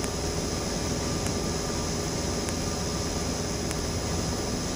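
Steady drone of a Cessna 172M's four-cylinder Lycoming engine and propeller in flight, heard inside the cockpit.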